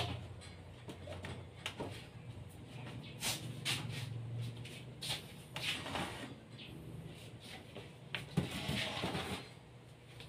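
Scattered wooden clunks and knocks as a circular saw and a board are handled on a plywood cutting jig, with a scraping slide of about a second near the end as the board is pushed into place beneath the saw; the saw itself is not running. A faint low hum lies underneath through the first half.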